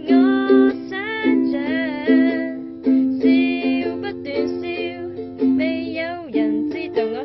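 Song music: a plucked-string accompaniment under a melody line that bends in pitch, sliding down steeply about six seconds in.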